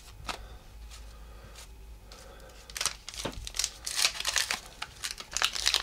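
A few soft taps of baseball cards being handled, then from about three seconds in a 1984 Topps wax-paper pack being torn open, its wrapper crinkling and getting louder toward the end.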